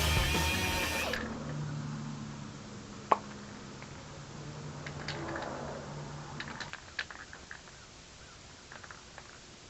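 Background music cutting off about a second in, then a faint low hum and scattered small clicks.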